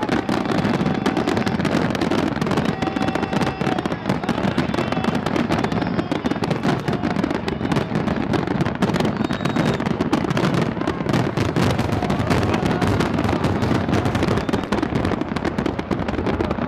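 Fireworks display: a dense, continuous crackle of many bursts going off without a break.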